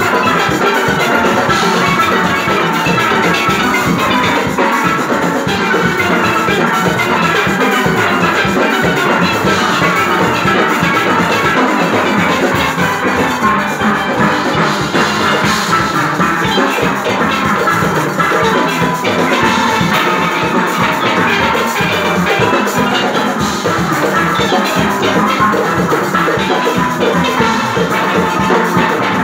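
Steel band playing live: many steel pans sounding a melody and chords together over drums and percussion that keep a steady beat.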